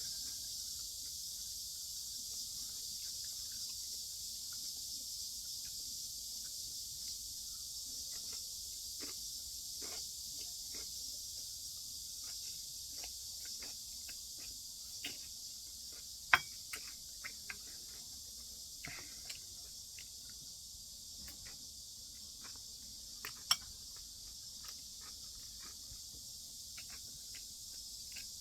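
Eating at a table: scattered soft clicks and taps of utensils on dishes while someone chews, with two sharp clinks about halfway and two-thirds through, over a steady high hiss.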